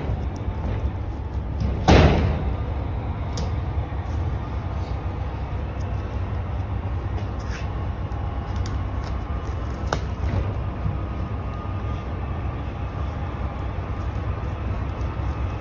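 A loud thump about two seconds in, then scattered light clicks and knocks over a steady low rumble.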